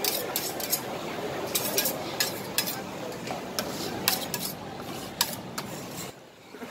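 Metal spatulas scraping and clicking against a frozen steel cold plate as rolled ice cream is scraped up and gathered. The strokes come in quick, irregular clicks and scrapes, then fall away shortly before the end.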